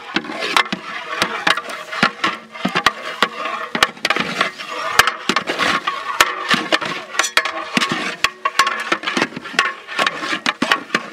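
Long-handled metal ladles stirring a big batch of scrambled egg in a large aluminium pot, scraping and clanking against the pot's sides in quick, irregular clicks.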